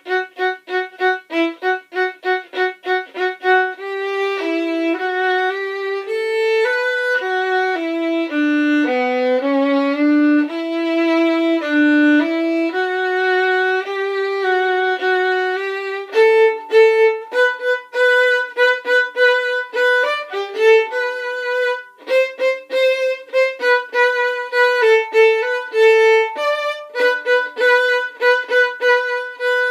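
Solo violin played with a bow. It opens with quick repeated short notes on one pitch, moves to a smoother passage of connected notes that step down and back up, and about halfway through returns to short detached notes a little higher.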